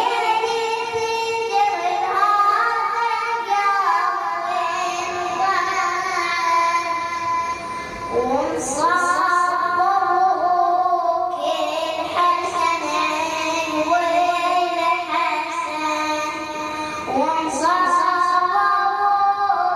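A boy singing a Shia lament (nawi) solo, in long drawn-out phrases that each open with an upward slide into held, wavering notes.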